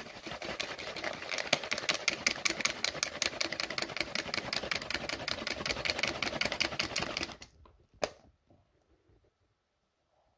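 A plastic water bottle of liquid being shaken hard by hand, its contents sloshing and slapping in a rapid, even rhythm; this dissolves mitragynine powder with citric acid in the water. The shaking stops about seven seconds in, followed by a single sharp knock.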